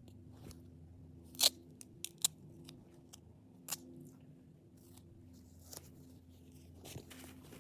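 Scattered sharp snips and clicks as a patch is cut and fitted over a crack in a shield, the loudest about a second and a half in, over a steady low hum.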